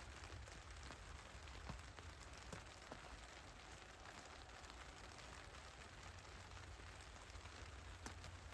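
Near silence: a faint steady low rumble and hiss, with scattered light ticks.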